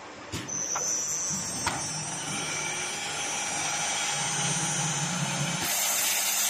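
CNC milling and drilling machine spindle starting with a click, then spinning up into a high steady whine that grows stronger near the end.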